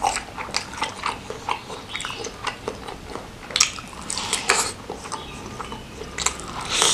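Close-up wet chewing and mouth smacking while eating a meat-filled meatball, with a few louder bites.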